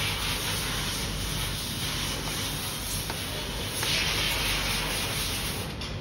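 Rubbing and rustling of fingers handling and twisting the thin stripped wires of an orange cable, over a steady low hum; the rustle grows louder about four seconds in.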